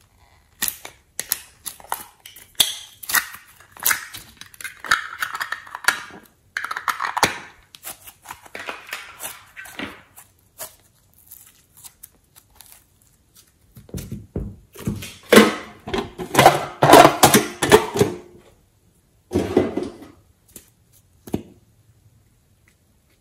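Small plastic pots being clicked open and their contents scraped, a quick run of clicks and scrapes. About halfway through, thick slime is handled over a plastic tray, giving a series of louder squishing, slapping handling noises for several seconds.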